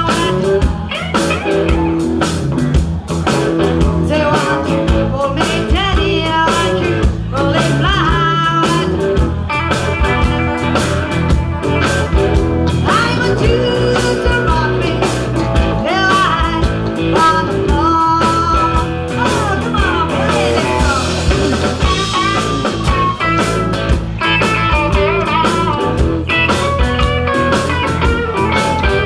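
Live blues-rock band playing loud: electric guitars and bass guitar, with a woman singing.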